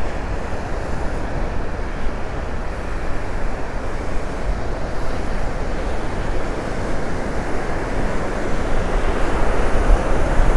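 Gulf surf washing in steadily on a sandy beach, mixed with wind rumbling on the microphone.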